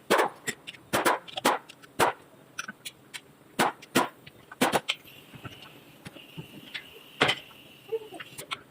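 Irregular sharp clicks and knocks, one or two a second, from hand tools and parts being handled during an engine overhaul, with a faint steady high whine for a couple of seconds in the middle.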